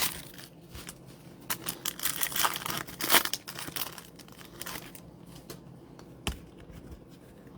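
Crinkling and tearing of trading card pack wrappers as packs are opened and handled, busiest in the first five seconds, then quieter with a single sharp click about six seconds in.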